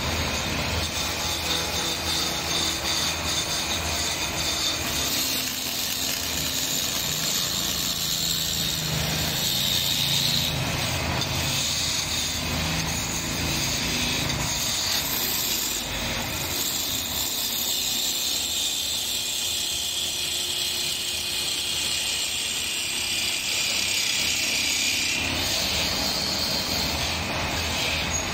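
Homemade wood lathe running while a hand-held parting tool cuts grooves into a spinning wooden blank: a steady scraping hiss of the cut over the low hum of the lathe's motor.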